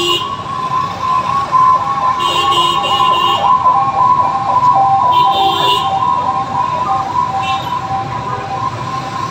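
An emergency vehicle's siren sounds through heavy street traffic, warbling rapidly for a few seconds in the middle. A vehicle horn honks three times over it.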